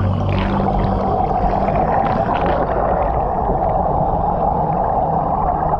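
Honda 35cc four-stroke outboard and its spinning propeller on a kayak drive leg, heard underwater: a steady drone and whine, with water rushing past.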